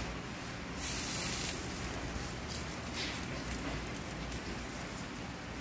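Porchetta sizzling in a hot oven as its skin is basted using a bundle of herbs as a brush. There is a louder hiss about a second in and a shorter one near three seconds.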